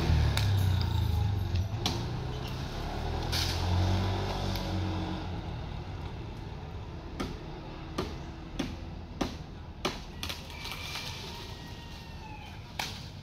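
A motor vehicle's engine running close by, fading away over the first five seconds. This is followed by a scattered series of sharp clicks and knocks.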